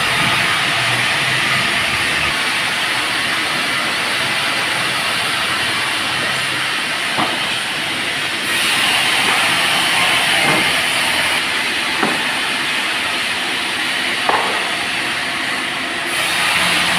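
Sawmill saw cutting through a teak log: a loud, steady hiss of the blade in the wood, with a few short knocks and a louder stretch about halfway through.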